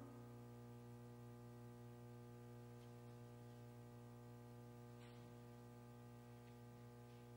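Near silence: a steady electrical hum, with a few faint ticks.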